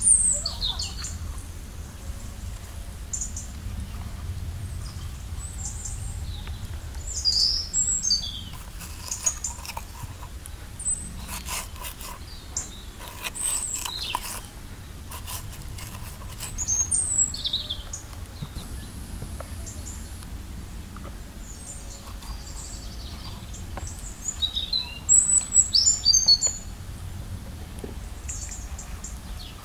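Small birds chirping and calling outdoors in short scattered phrases, the loudest run of chirps near the end, over a steady low background rumble. A few faint clicks come around the middle.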